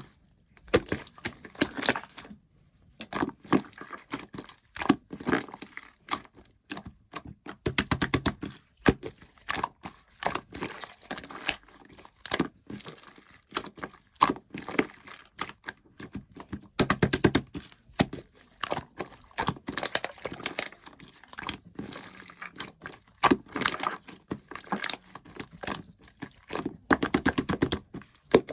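Slime being squeezed, pressed and stretched, giving dense runs of crackling, popping clicks in repeated bursts of a second or two with short pauses between.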